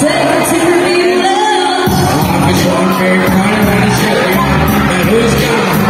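Loud dance music with a steady beat and singing. The bass drops out for about the first two seconds, then comes back in.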